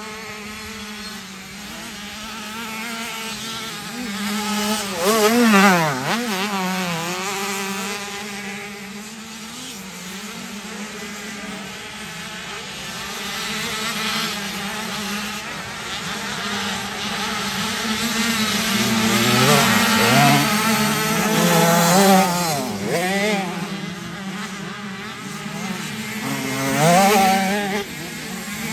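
Motocross motorcycle engines revving, their pitch rising and falling, over a steady engine drone. The engines surge louder about five seconds in, again around twenty seconds in, and near the end.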